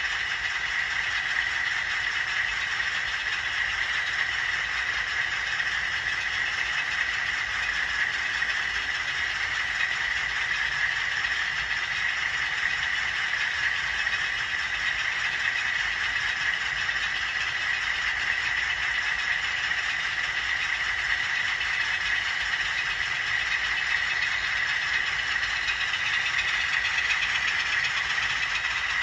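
HO-scale model freight train hauled by DCC-controlled diesel locomotives, running past with a steady mechanical running sound that grows a little louder near the end.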